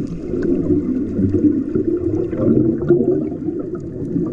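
Muffled underwater noise picked up by a camera held underwater: a steady low rumble of water with faint scattered ticks.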